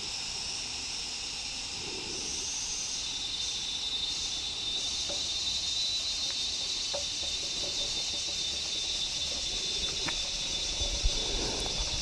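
Steady, high-pitched chorus of insects shrilling without a break in the forest.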